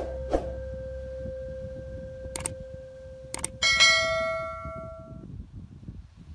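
Subscribe-button animation sound effect: a few sharp mouse clicks, then a bright notification-bell ding about four seconds in that rings out for about a second and a half. Under it there is a low rush of wind on the microphone.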